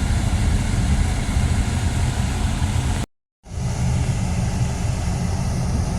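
Steady low rumble of a car driving, engine and road noise together, which drops out completely for a split second about halfway through.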